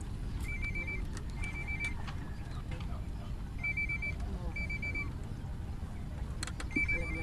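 Steady low outdoor rumble, with a short, high, stuttering chirp that comes in pairs about every three seconds.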